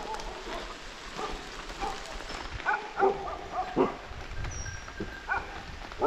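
A dog barking several short barks from about halfway in, over steady rain.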